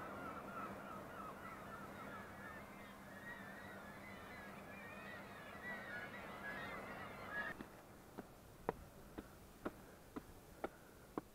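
Many seabirds calling over one another, a dense, wavering chatter of a cliff colony, which stops abruptly about two-thirds of the way in. Then sharp, regular footsteps on concrete steps, about two a second.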